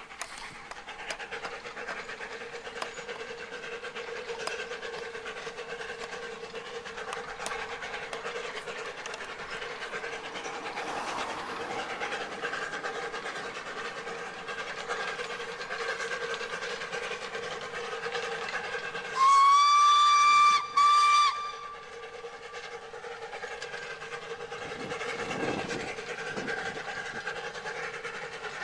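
Narrow-gauge steam locomotive running with its passenger train, a steady train sound. About 19 seconds in, its steam whistle sounds one long blast and then a short one, much louder than the rest.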